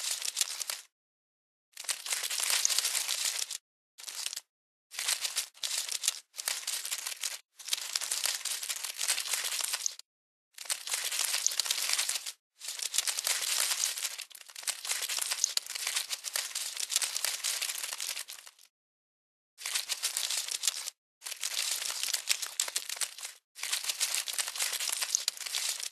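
Dry crackling, rustling sound effect, like scuttling or crinkling, in bursts of about one to three seconds. Each burst cuts off abruptly into a short gap of dead silence.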